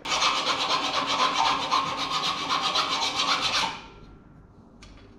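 A power drill boring out a stainless steel mount's bolt hole to M14, the bit cutting with a harsh, rasping grind for about three and a half seconds before it stops.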